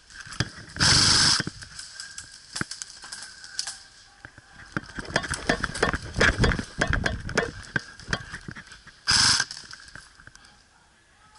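Two short bursts of rapid full-auto fire from an airsoft electric gun (AEG), one about a second in and one near the end, each about half a second long. In between come irregular clicks and knocks.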